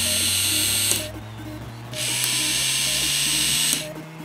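Small K'nex toy gear motor whirring with a high whine, switched off about a second in, switched back on a second later and off again near the end.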